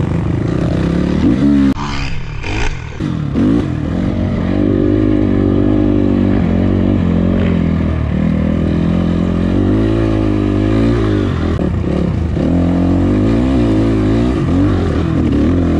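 Enduro dirt bike engine running and revving up and down as it is ridden, the pitch rising and falling every second or two, with a brief clatter of knocks about two seconds in.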